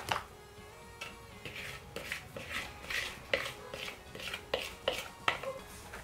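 Light clinks and scrapes of a metal mesh sieve and kitchenware while batter is strained through the sieve, about two a second.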